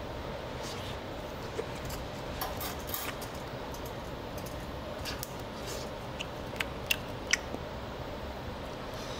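Quiet table sounds at a tabletop skewer grill: a scattering of short, light clicks from eating and handling metal skewers over a steady room hum, a few sharper clicks coming close together between about six and seven and a half seconds in.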